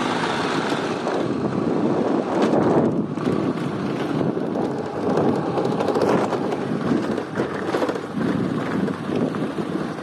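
Wind buffeting the microphone of a moving scooter, over the scooter's running and its tyres on the road, rising and falling in gusts.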